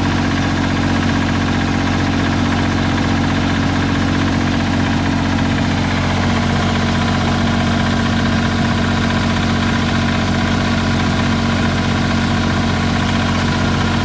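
Mitsubishi MM20CR mini excavator's diesel engine idling steadily, with an even, unchanging note.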